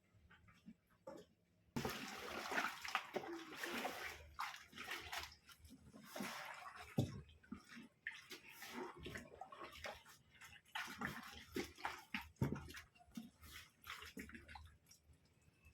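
Water sloshing and splashing in the wash tub of a Ramtons 10 kg twin-tub washing machine as it washes a load. The sound starts suddenly about two seconds in and surges and falls unevenly.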